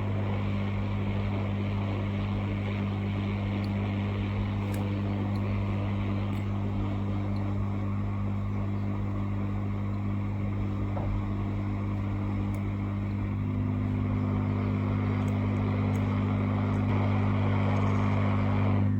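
Hot air rework station blowing, heating the solder to free a phone's charging port: a steady rush of air over a low motor hum. The hum's pitch shifts slightly about two-thirds of the way through.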